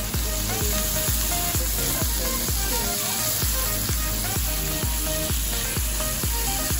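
Background music with a steady beat, about three beats a second, over salmon fillets sizzling in hot oil in a nonstick frying pan.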